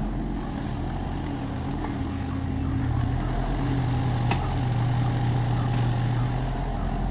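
Excavator's diesel engine running steadily with a low hum, with one short sharp click about four seconds in.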